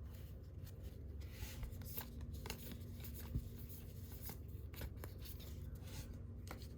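Faint rustling and soft clicks of baseball cards and a foil pack wrapper being handled as a pack is opened, over a low steady hum, with one sharper tap about three and a half seconds in.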